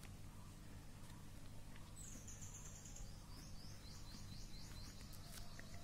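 Faint high bird chirping: a falling call about two seconds in, then a quick run of short notes at about four a second. Under it are a low steady hum and faint scratching of writing on paper.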